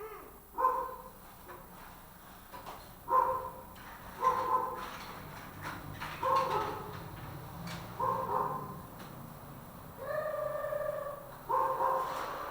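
A dog barking in single barks every second or two, with one longer drawn-out call about ten seconds in.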